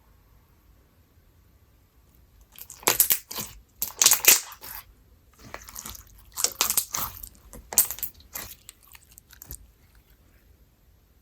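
Honey lemonade slime with lemon peel mixed in, squished and pressed in a series of crackly, crunchy bursts that start about two and a half seconds in and stop about a second and a half before the end.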